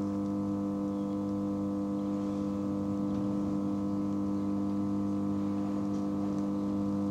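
Steady electrical hum heard inside an electric train's carriage, a low drone made of several fixed tones that stay level throughout.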